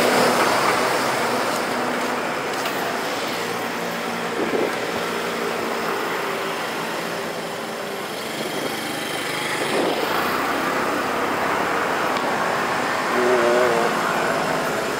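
City street traffic: a bus, cars and motor scooters running and passing, a steady wash of engine and road noise. It is loudest at the start, right beside the bus.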